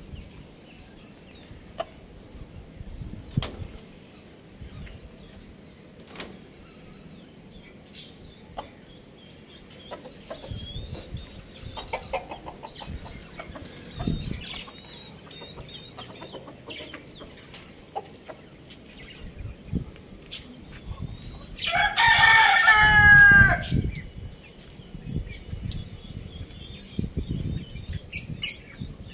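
A rooster crows once, a single loud call of about two seconds, a little over two-thirds of the way through. Scattered faint clicks and short sounds come before and after it.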